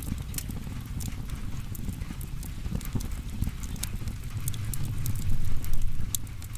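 Firewood burning: a steady low rush of flames with sharp, irregular crackles and pops scattered throughout, growing louder about five seconds in.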